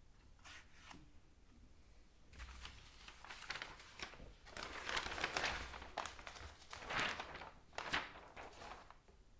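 Paper instruction sheets rustling and crinkling as they are picked up and handled, in a series of rustles that start about two seconds in and come loudest in a few peaks in the second half.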